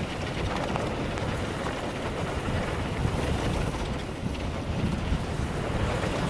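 Mountain bike rolling fast down a dirt downhill trail: a steady rumble of tyres and bike, with wind buffeting the camera microphone and a few light knocks.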